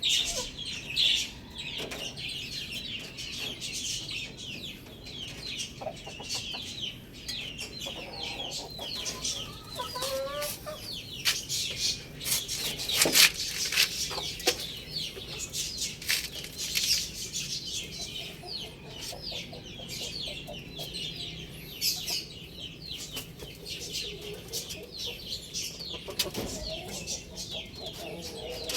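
Chickens clucking, with a dense, continuous chatter of short, high peeping chirps. A few sharp clatters come around the middle.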